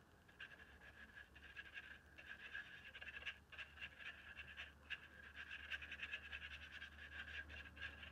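Faint, quick repeated scratching of a paintbrush dabbing and scrubbing ink onto a paper journal page.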